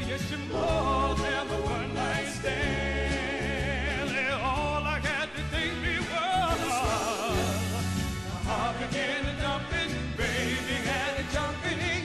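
Soul vocal group singing live over backing music, the voices wavering with vibrato above a steady bass line.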